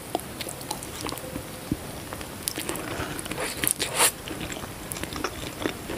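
Close-up biting and chewing of a grilled sausage on a skewer: irregular small mouth clicks and crunches, a little louder about four seconds in.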